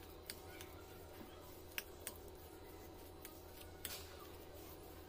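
Metal spoon stirring a thick, soft mixture in a glass bowl, with a handful of sharp, irregular clicks where the spoon knocks against the glass.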